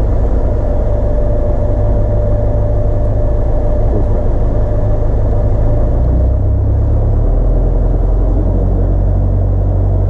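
Piper Archer's engine and propeller droning steadily, heard inside the cabin at taxi power. The engine note shifts about six to seven seconds in.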